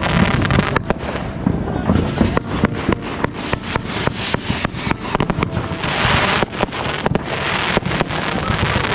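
Consumer fireworks going off: rapid crackling pops throughout, a thin high whistle lasting about four seconds, then two short bursts of hissing near the end.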